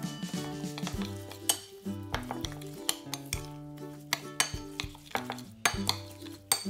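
Kitchen utensils clinking and scraping against dishes in irregular sharp clicks, over soft background music.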